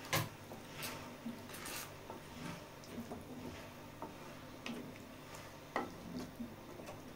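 Wooden spatula stirring a thick shrimp sauce in a speckled enamel pan: irregular taps and scrapes of the spatula against the pan, with the wet squish of the sauce, over a faint steady low hum.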